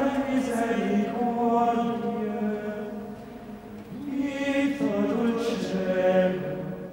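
Sung chant: voices singing long held notes in two phrases, with a softer dip about three and a half seconds in.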